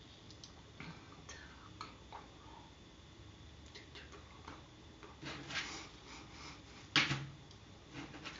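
A few faint, scattered clicks and soft rustles, with one sharper click about seven seconds in.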